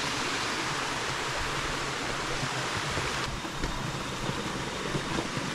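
A clear hill stream flowing over rocks, a steady rushing of water.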